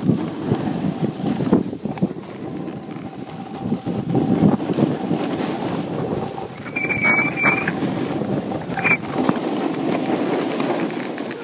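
Wind rushing over the microphone while snowboard edges scrape and hiss over groomed snow, rising and falling with each turn. Two short high chirps come about seven seconds in, and one more near nine seconds.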